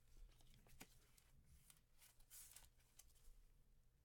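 Near silence: faint clicks and a brief soft rustle of trading cards being handled, over a low room hum.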